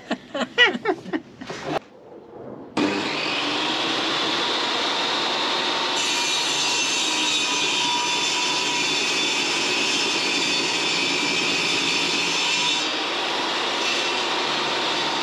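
Benchtop table saw starting up about three seconds in and running steadily as a board is pushed through the blade.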